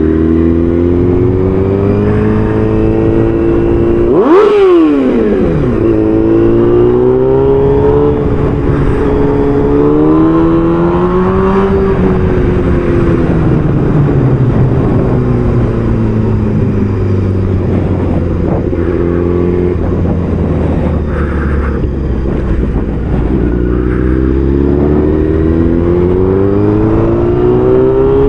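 Motorcycle engine running under way, its pitch climbing as it accelerates. About four seconds in it flares up sharply and drops away, then it climbs slowly, eases off through the middle and climbs again near the end.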